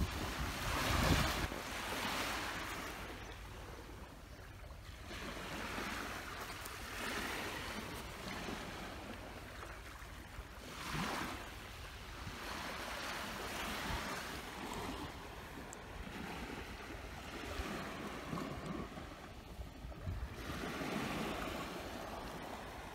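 Small waves washing in on a sandy beach, rising and falling in swells every few seconds, with wind rumbling on the microphone.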